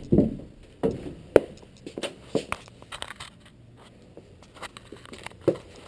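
Irregular footsteps with light knocks and scrapes, some of them sharp. They come about every half second at first, ease off in the middle, and pick up again near the end.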